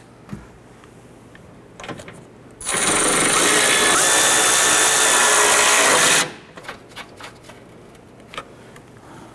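Cordless power ratchet running for about three and a half seconds, spinning the strut's upper mount nuts down until snug. It starts about two and a half seconds in and cuts off about six seconds in.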